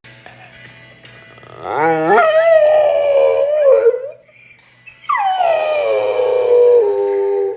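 A dog howling twice in long, pitched calls: the first rises and is held with a wavering pitch, the second starts high and slides down.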